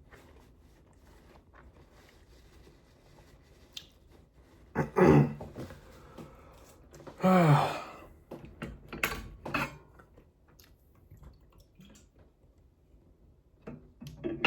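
A person eating, with soft mouth and chewing clicks and two short, loud vocal sounds about five and seven seconds in; the second drops in pitch.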